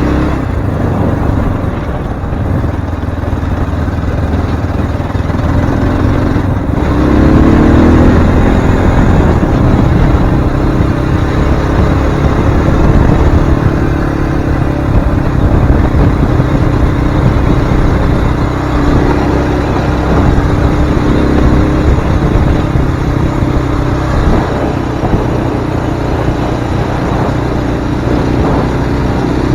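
Zongshen RX3 Cyclone's single-cylinder engine running while riding off-road, its pitch climbing about seven seconds in and then holding steady, over a constant rumble of riding noise.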